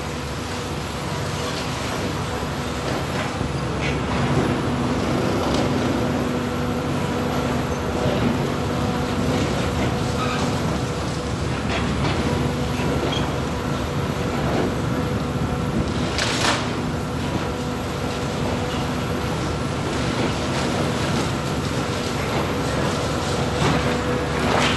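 Hitachi Zaxis 350 high-reach demolition excavator running steadily under load, its diesel engine and hydraulics making a continuous hum. Scattered knocks and cracks come as the Trevibenne crusher jaws break concrete, the sharpest about two-thirds of the way through.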